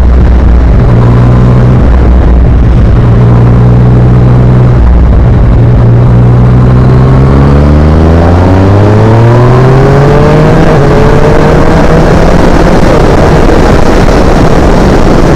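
Yamaha MT-09's three-cylinder engine through an Akrapovic exhaust, running at steady low revs for about five seconds, then revving up in one long rise and levelling off. Wind noise grows stronger as the engine climbs.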